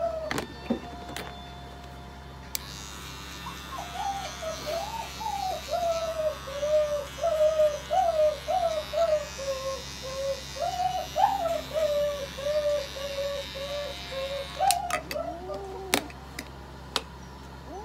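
A domestic cat yowling in protest while held for a nail trim: one long wavering call that rises and falls for about twelve seconds, then a few shorter calls near the end. A few sharp clicks come near the start and again near the end.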